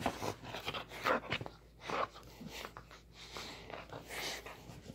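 A dog snuffling and breathing close to the microphone in short, irregular sniffs, mixed with the rustle of a hand stroking its fur.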